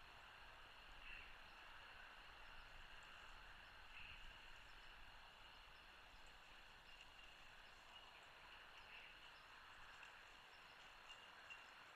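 Near silence: faint steady outdoor hiss, with a few brief, faint high chirps scattered through it.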